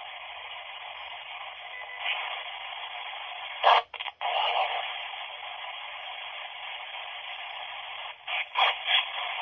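Spirit-box radio static played back from a recording through a Nokia flip phone's small speaker: a steady, thin hiss, with a loud burst about four seconds in, a brief cut-out just after it, and a few short crackles near the end.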